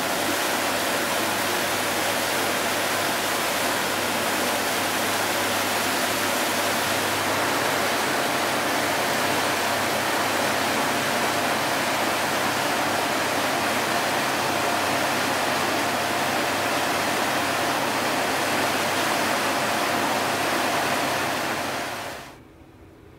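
Steady rushing and churning of a river cruise ship's wake as the water boils up behind the stern, with a faint steady hum underneath. It cuts off abruptly near the end.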